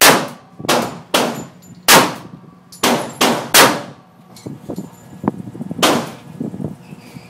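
Handgun fired at an indoor range: a quick string of about seven shots in the first four seconds, then one more after a pause of about two seconds, each shot trailing off in the range's echo, with fainter knocks in between.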